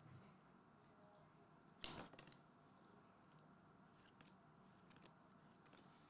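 Near silence broken by faint handling of Weiss Schwarz trading cards as they are slid and flipped in the hands, with one sharper card snap about two seconds in and a few soft ticks after.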